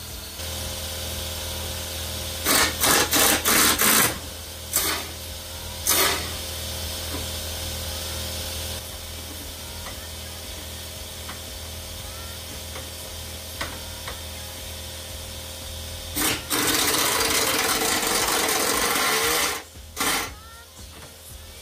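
Air-powered wrench on the van's bumper bracket bolts. It comes in a quick run of about five short trigger bursts, then two more single bursts, then one long burst of about three seconds near the end, where the bolts are stuck in a bent bumper.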